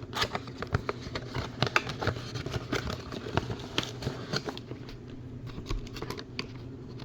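Cardboard tool packaging being handled and opened: a run of irregular clicks, taps and light rustles.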